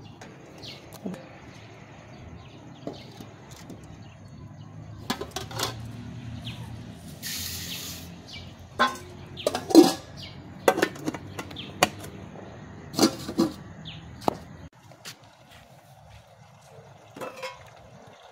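Aluminium cooking pot and lids clanking and knocking as they are handled over an open wood fire, with several sharp clatters in the middle.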